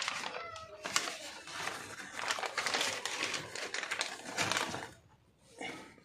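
Packaging crinkling and rustling as the paper-and-plastic courier wrapping is pulled off and the boxed wireless mouse is handled. It dies away a little before the end.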